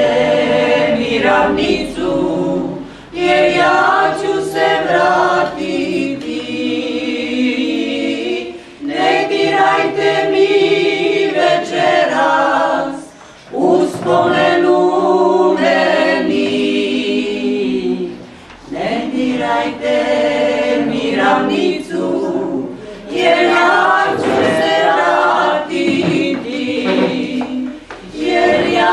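Four women singing a song together unaccompanied, in sung phrases of a few seconds each with short pauses between them.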